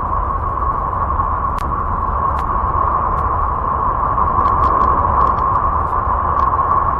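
A steady, unbroken drone presented as a sound of space, with one strong mid-pitched hum over a low rumble and a few faint ticks scattered through it.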